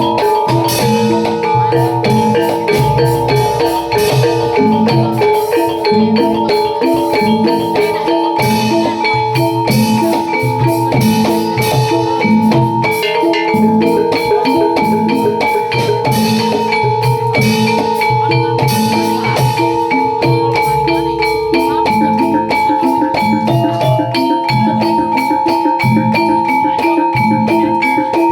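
Javanese gamelan ensemble playing jaranan accompaniment: a dense, fast pattern of struck metallophones over regular low drum strokes, with a steady held note underneath.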